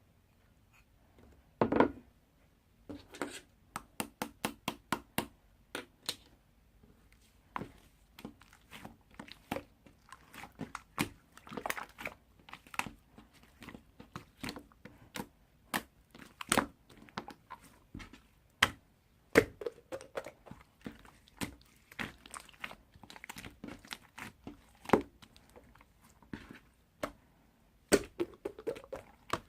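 Small crunching and crinkling clicks, irregular, with a quick run of about four a second a few seconds in.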